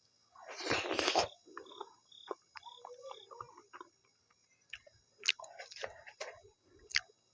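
Close-up eating sounds from a mouthful of maize dhido with nettle curry: chewing, lip smacks and small wet clicks. A loud breathy noise comes about a second in, and a few sharper smacks come later.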